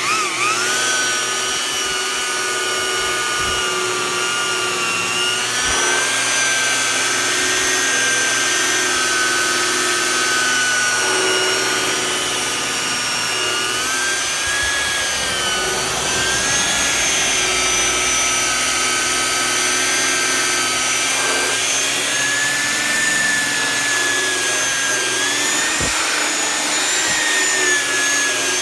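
DeWalt electric rotary polisher running steadily with a foam pad, buffing polish into a plastic headlight lens. Its motor whine holds a steady pitch that wavers slightly a few times.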